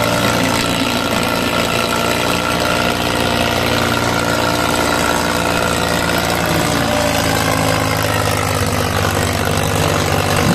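Tractor diesel engine running steadily and loudly under heavy load. Its pitch sags a little past the middle as it lugs down.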